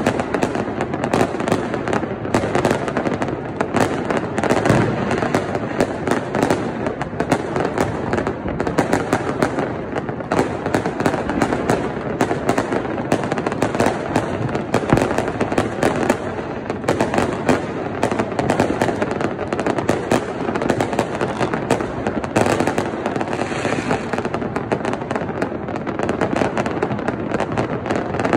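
Many fireworks and firecrackers going off at once across a city: a continuous, unbroken crackle of overlapping bangs, with no pause.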